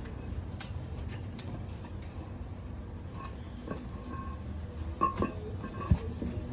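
Concrete pavers clinking and knocking as they are handled and set down, several scattered sharp clicks with a heavier thump near the end.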